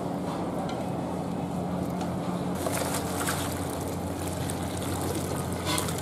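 Water and freshwater crabs poured from an aluminium basin into a plastic colander, splashing, starting about halfway through. A steady low hum runs underneath.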